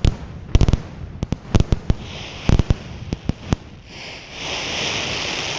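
Closing salvo of a fireworks display: a rapid run of sharp bangs from aerial shells bursting, about a dozen in the first three and a half seconds. The bangs stop and, about four seconds in, a steady hiss of applause takes over.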